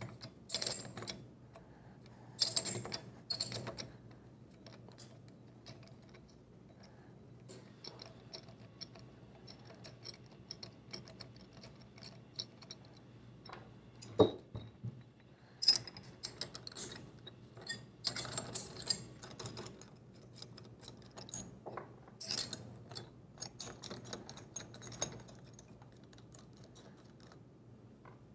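Combination wrenches clinking on the body bolts and nuts of a three-piece stainless steel ball valve as the four bolts are loosened and backed off, with nuts set down on a wooden bench. Scattered metallic clinks and ticks come in clusters, with a duller knock about 14 seconds in.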